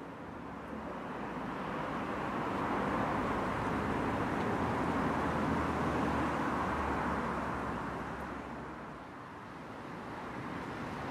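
Noise of a passing road vehicle, swelling to a peak about halfway through and fading away near the end.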